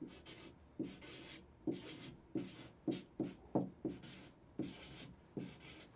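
A marker writing on a large paper sheet on a wall, in a dozen or so short scratchy strokes as a line of text is written out.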